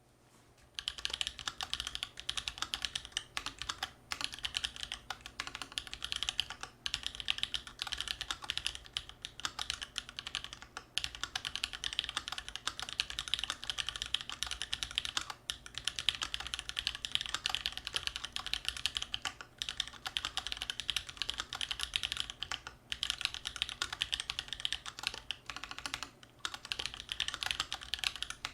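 Fast continuous typing on a custom mechanical keyboard with tactile Holy Panda switches in a steel plate and GMK ABS keycaps: a dense stream of key clacks, starting about a second in, with brief pauses every few seconds.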